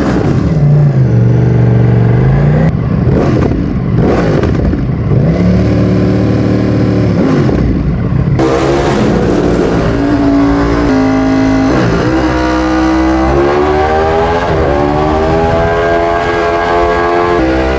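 Ducati Streetfighter V4S's 1103 cc Desmosedici Stradale V4 engine through an Akrapovic exhaust, loud. For the first eight seconds the revs fall and rise again twice; then the bike accelerates hard through several gears, the pitch climbing and dropping back at each shift.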